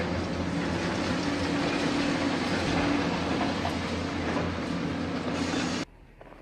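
Heavy machinery engine running steadily with a rattling, clattering layer over a constant low hum; it cuts off suddenly near the end.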